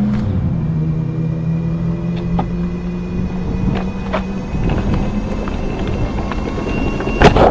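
Toddler's kick scooter's small plastic wheels rolling over asphalt: a steady rumble with scattered light rattles and clicks, the scooter riding on worn tires, with one sharp knock near the end.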